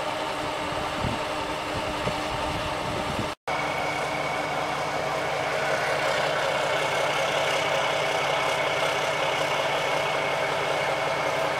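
Heavy truck's diesel engine idling steadily, with a thin steady whine above it; the sound drops out for an instant about three seconds in.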